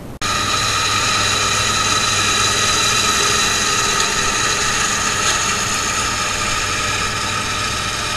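Farm tractor and its hay implement working close by: a loud, steady engine and machinery sound with a many-toned whine, starting abruptly.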